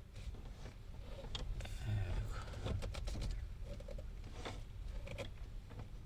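Irregular knocks and scraping clicks from a 2019 Tata Nexon's electric power-steering motor as the steering is turned left and right. The motor's mounting bolt under the driver-side dashboard has come loose, letting it knock.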